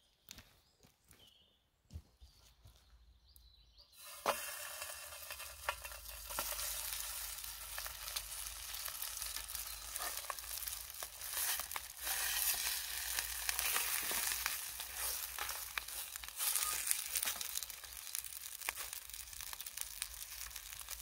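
Slices of Lorne sausage sizzling in hot oil in a frying pan over a wood-fired twig stove. The sizzle starts suddenly about four seconds in, as the meat goes into the pan, and then runs on steadily with small crackles.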